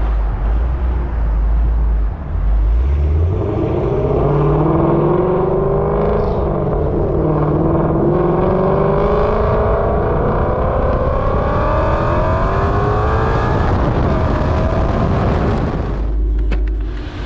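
2016 Mustang GT's 5.0 Coyote V8 through Kooks headers and a Corsa Extreme exhaust, rumbling low and then accelerating, its pitch climbing steadily for about ten seconds with a short dip partway through, before dropping away near the end.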